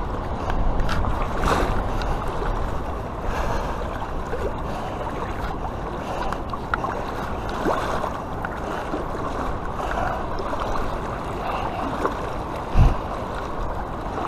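River water swishing and sloshing around the legs of a wader moving through the shallows, with a single loud thump near the end.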